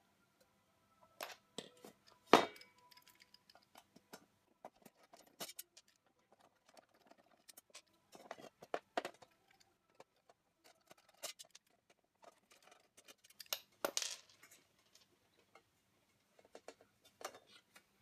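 Scattered clicks and light metallic clinks of a screwdriver and a sheet-metal hard-drive cage being handled while the drive's mounting screws are taken out. The sharpest knocks come about two seconds in and again near fourteen seconds.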